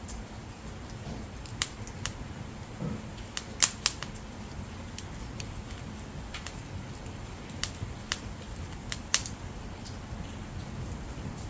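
Dried firewood burning, with a steady low rush from the flames and irregular sharp crackles and pops. The loudest pops come about three and a half seconds in and again near nine seconds.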